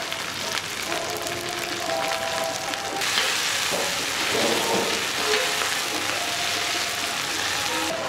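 Chilies, shallots and garlic sizzling in hot oil in a wok while being stirred with a metal spatula; the sizzling gets louder about three seconds in.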